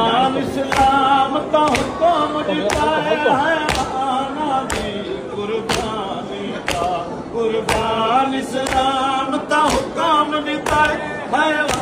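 Men's voices singing a noha, with the thud of hands beating chests in matam falling in time about once a second.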